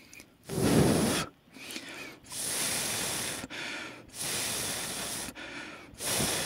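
Several long puffs of breath blown onto freshly applied hot-melt glue to cool it so it sets, the first one the loudest, with shorter, weaker breaths between them.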